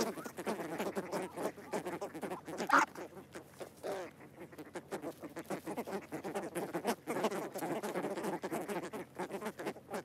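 A flock of white ibises calling close by: a dense run of short, low, nasal honks, some overlapping, with one louder call about three seconds in.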